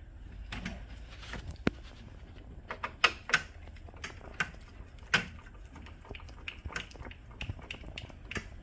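Scattered clicks and knocks of hands working at a laser printer's open back, irregular, with the sharpest ones about three and five seconds in.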